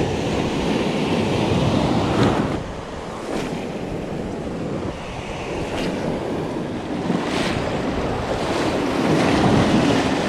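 Small ocean surf breaking and washing over rocks around the feet, with wind buffeting the microphone. The wash swells louder about two seconds in and again near the end.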